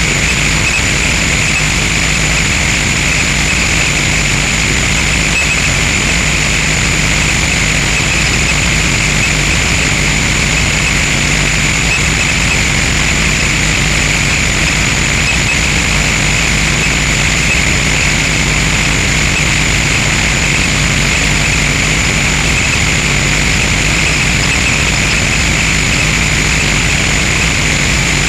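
Harsh noise music: a loud, dense wall of distorted electronic noise that holds steady without a break. A hissing band sits high up and a low hum runs beneath.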